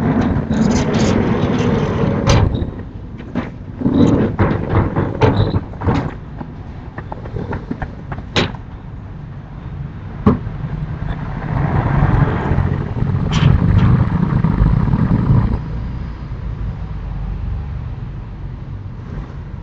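Sliding storm shutters (amado) being worked along their tracks: a run of sharp knocks and clatters, then a longer rumbling slide about eleven to fifteen seconds in, over a steady low rumble.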